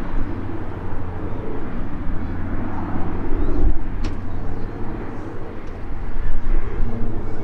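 SIAI-Marchetti SF-600 Canguro twin-engine aircraft climbing out after takeoff: a steady, low propeller and engine drone.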